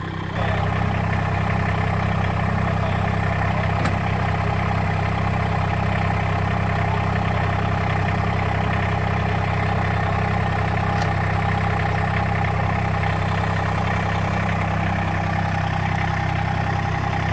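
Massey Ferguson GC1710 sub-compact tractor's three-cylinder diesel engine running steadily at an even pitch and level.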